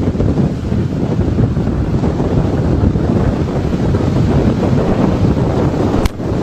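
Storm-force wind buffeting the microphone: a loud, ragged rumbling roar that is strongest low down. A short click and a brief drop come about six seconds in.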